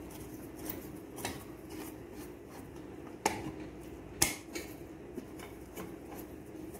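Aluminium pressure cooker lid being unlocked by its top handle after cooking: metal clicks and scrapes, with two sharp louder clicks about three and four seconds in. A steady low hum runs underneath.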